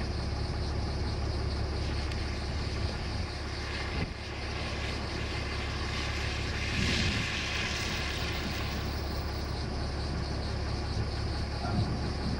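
Steady low rumble of an idling vehicle engine under wind noise, with a brief swell of hissing wind about seven seconds in.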